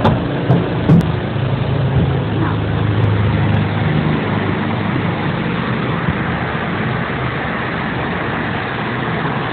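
Steady road and engine noise inside a moving car, with a low hum, and a few short knocks about a second in.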